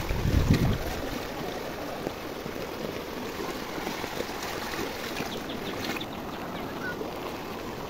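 Muddy floodwater rushing over a flooded road, a steady watery rush. There is a low rumble of wind on the microphone in the first second.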